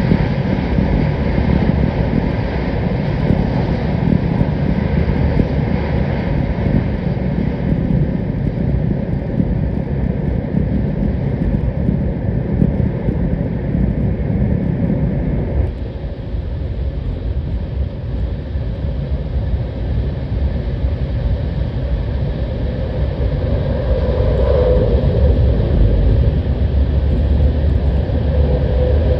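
Sanyo Shinkansen train running at speed through a tunnel, heard from aboard: a loud, steady rushing roar with a deep rumble. About halfway through, the deep rumble drops off abruptly and the roar carries on at a lower level.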